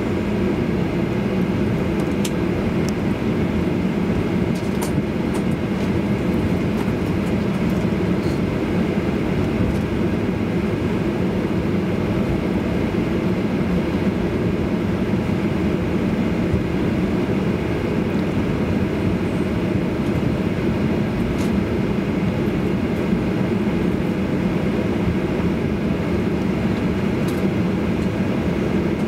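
Cabin noise inside a Boeing 737-800 taxiing: the steady hum and rumble of its CFM56 turbofans at taxi power mixed with rolling noise, with a few faint clicks.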